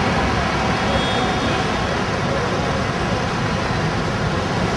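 Steady city street traffic noise: the running engines and tyres of many cars blending into one continuous wash.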